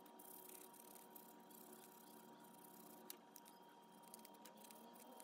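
Faint scrubbing of a nylon-bristle brush over a Honda Today scooter's carburetor body during cleaning, with small light clicks from handling it and a sharper tick about three seconds in.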